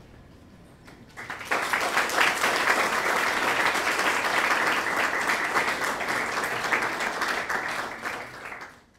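Audience applauding, starting about a second in, holding steady, then fading near the end.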